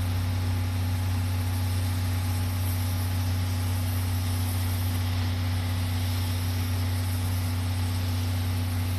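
Steady low hum of an idling engine with a fainter higher tone above it, over an even hiss; it holds level without any change.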